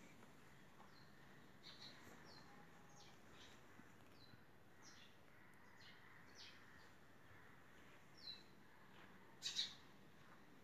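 Small birds chirping in short, high, falling notes every second or so, with a louder run of chirps near the end, over a faint steady room hush.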